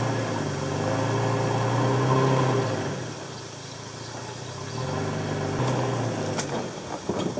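Pickup truck engine pulling a small camp trailer forward at a crawl. It revs up twice and eases off in between, with a short sharp click near the end.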